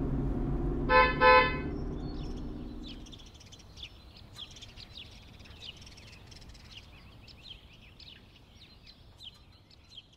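Cartoon car honking two short toots about a second in while its engine hum fades away as it drives off. Faint birds chirping follow.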